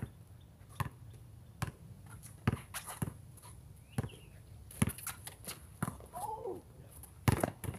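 Basketball dribbled on a concrete court: sharp slaps of the ball on the slab, a little under a second apart, with a louder bang near the end.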